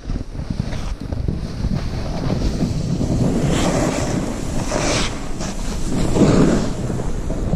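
Wind buffeting an action camera's microphone while a snowboard rides through deep powder snow. The rushing noise is loud and steady and swells a few times as the rider carves and snow sprays.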